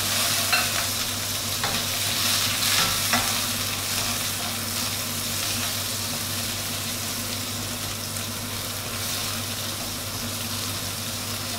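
Raw peeled shrimp sizzling in hot oil in a wok as they are dropped in and stirred with a wooden spatula. The frying hiss is loudest for the first few seconds after they go in, then settles to a steady sizzle with a few light scrapes of the spatula. A steady low hum runs underneath.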